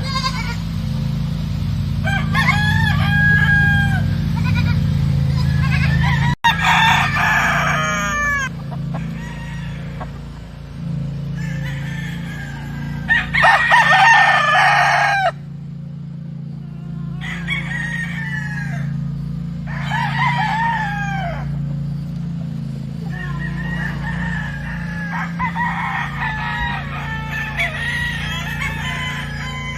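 Roosters crowing again and again, one crow after another, some overlapping, with clucking in between, over a steady low hum.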